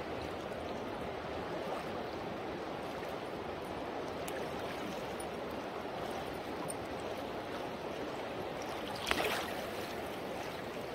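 River water flowing steadily, with a short louder burst about nine seconds in.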